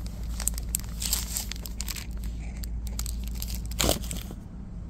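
Plastic packaging on packs of colored pencils crinkling and crackling as they are handled close to the microphone, with a louder rustle a little before four seconds in.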